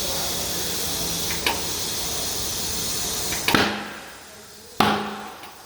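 Compressed air hissing steadily into a tubeless low-profile tyre through a tyre changer's inflation hose, then two loud pops about a second apart, each with a brief ring, as the tyre's two beads snap into place on the wheel rim: the sign that both beads have seated.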